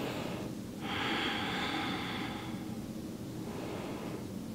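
A person breathing slowly and audibly: one long breath begins about a second in and fades away over two to three seconds, and the next begins near the end.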